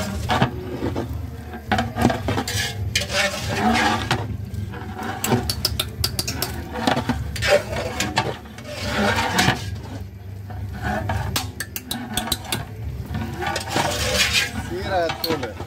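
Long-handled perforated steel ladle clanking and scraping against a large metal biryani pot as chicken with masala is stirred, irregular metal knocks over a steady low hum.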